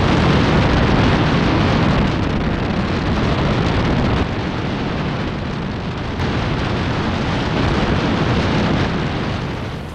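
Heavy wind rumble on the microphone of a motorboat underway: a loud, steady rushing that eases a little about four seconds in and fades out near the end.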